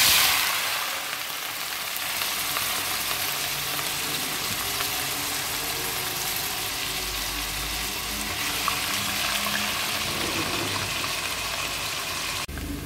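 Sliced bitter gourd (karela) deep-frying in hot oil in a steel pot: a steady, hissing sizzle and bubbling, loudest right at the start as the slices go in.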